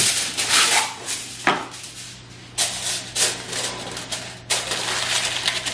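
Aluminium foil torn off the roll against the box's cutting edge, then crinkled and crimped by hand over the tops of metal bread tins, in repeated crackling bursts.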